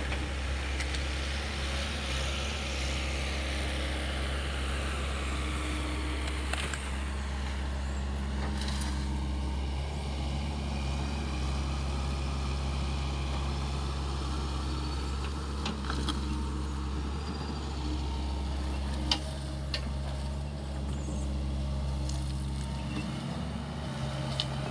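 SANY mini excavator's diesel engine running steadily under working load, a constant low drone, with a few sharp cracks scattered through and a slight shift in the engine note near the end.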